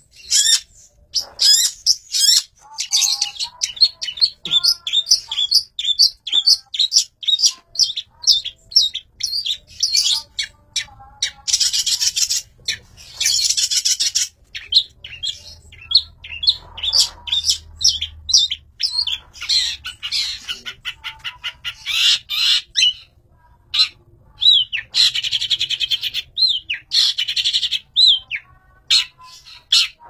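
Long-tailed shrike singing: a fast, varied run of short chirps and whistled notes, broken several times by scratchy chattering passages.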